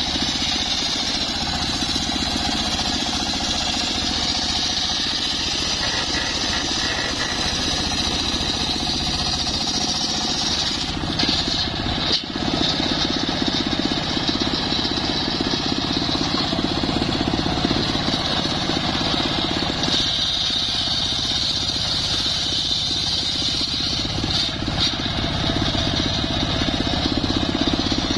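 Homemade table circular saw ripping a wooden plank lengthwise: the blade whines steadily in the cut over the low drone of its drive. The whine drops out briefly about 11 seconds in, and the sound dips for a moment near 12 seconds before the cut carries on.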